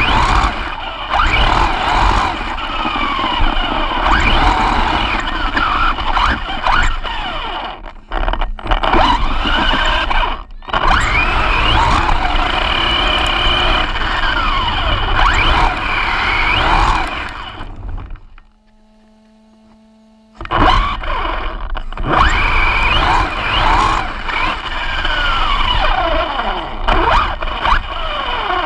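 RC car heard from its onboard camera while driven hard on dirt: the motor and drivetrain whine rising and falling quickly with the throttle, over steady rushing wind and dirt noise. The sound drops away for about two seconds roughly two-thirds of the way through, then the whining resumes.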